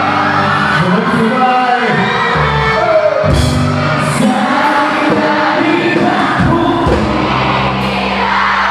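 Live rock band playing through a PA, with a lead singer singing over guitars and drums and cymbal crashes a few seconds in.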